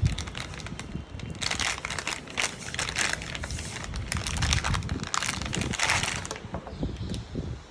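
Packaging of a soldering iron being handled and unwrapped, with a knock at the start and then irregular crinkling and rustling that dies down near the end.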